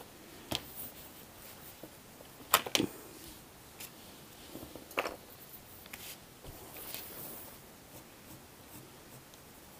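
Desk sounds while drawing: a few light knocks of art supplies being handled, the loudest about two and a half seconds in, with faint rubbing on paper from a kneaded eraser and then a coloured pencil.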